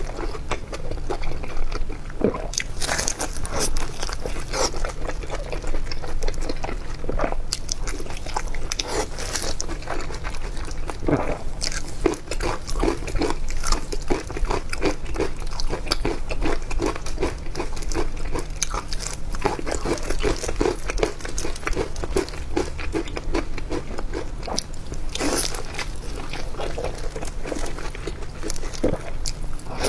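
A person biting and chewing crunchy food, with a dense run of irregular crunches and crackles throughout.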